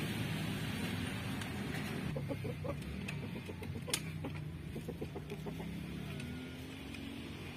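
Chickens clucking in a quick run of short calls, over a low steady rumble.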